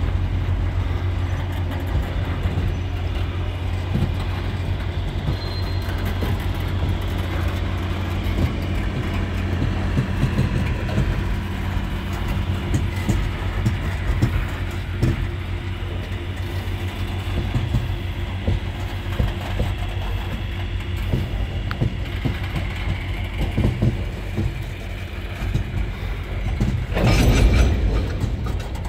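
Freight train boxcars and refrigerator cars rolling past: a steady low rumble, with the wheels clacking irregularly over the rail joints. A brief louder rush of noise comes near the end.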